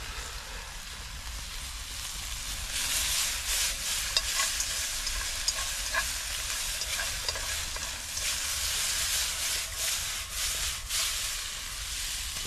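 Green peppers and tofu skin frying in a wok over a wood fire while being stirred; the sizzle grows louder about three seconds in, with scattered clicks through it.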